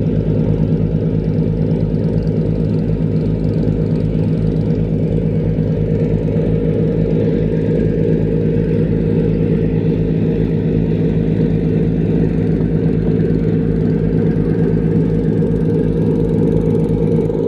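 A river cargo boat's diesel engine running steadily under way, heard on board: a loud, unchanging drone with a fast low throb.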